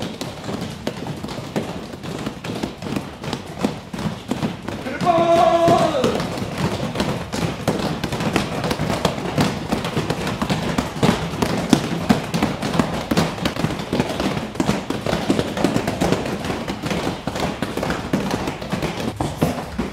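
Fast, overlapping thuds of many fists punching hand-held foam strike pads in a full-power punching drill, with a voice shouting once about five seconds in.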